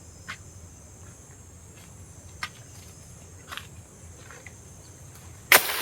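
Insects buzzing steadily at a high pitch in a plantation, with a few sharp clicks, then a loud crunching rustle near the end.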